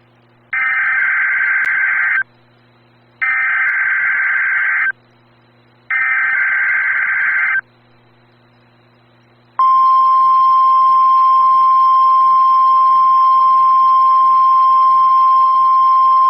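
NOAA Weather Radio weekly test signal. Three bursts of SAME digital header data, each about 1.7 s long and about a second apart, are followed about nine and a half seconds in by the steady 1050 Hz warning alarm tone.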